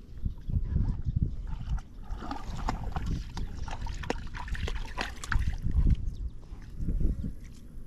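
Irregular knocks and rustling from a small hooked fish flapping while held in the hand, with some water sounds.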